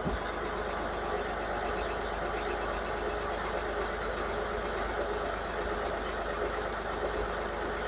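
Steady motor hum with one held tone, even and unbroken.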